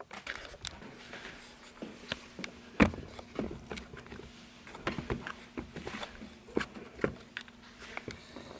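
Irregular clicks, knocks and rustles of objects being handled, the loudest a knock about three seconds in, over a faint steady hum.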